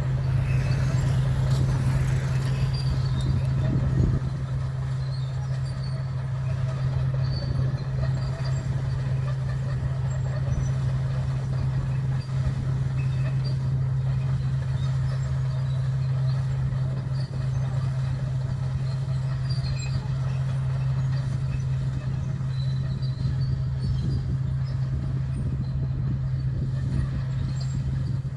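Komatsu D61 bulldozer's diesel engine running with a steady low drone. It is louder and rougher for the first four seconds, then settles slightly lower.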